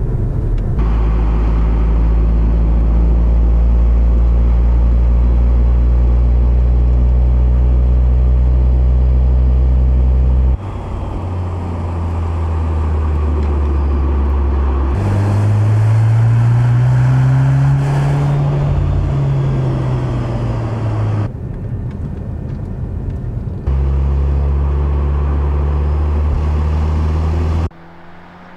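Mercedes-AMG C 63 S E Performance's 2.0-litre turbocharged four-cylinder engine running while the car is driven, a steady drone that changes abruptly at several cuts. A little past the middle its pitch rises and then falls.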